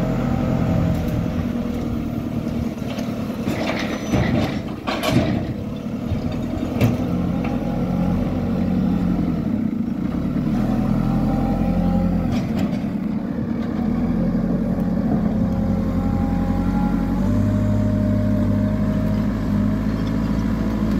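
JCB backhoe loader's diesel engine running while the machine moves, its speed shifting several times and picking up about seventeen seconds in. A few sharp knocks come about four to five seconds in.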